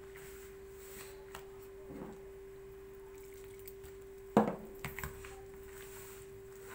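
Hands rubbing margarine into flour in a plastic bowl, a faint scraping, with one sharp knock about four and a half seconds in and a few lighter clicks just after. A steady hum runs underneath.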